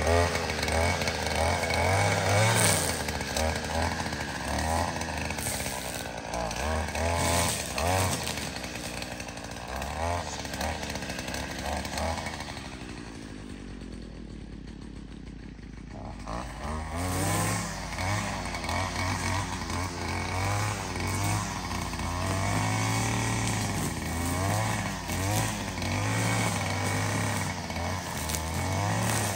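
A small engine running, its pitch rising and falling over and over as it is throttled up and down, with a quieter lull about halfway through.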